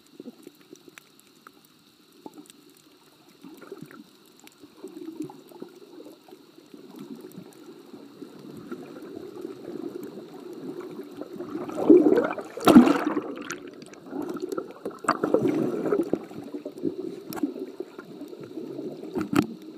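Muffled underwater water noise heard through a submerged camera: gurgling and sloshing that builds from almost nothing to two loud rushes of water about two-thirds of the way through. A faint steady high whine runs underneath.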